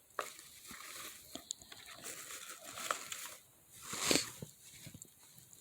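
Hands rummaging through a fabric cosmetics pouch and its wrapped products: soft irregular rustling with small clicks and taps of plastic items. One louder swish about four seconds in.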